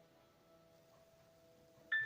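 Background music of bell-like struck notes: one note rings on and fades, and a new chime-like note is struck near the end.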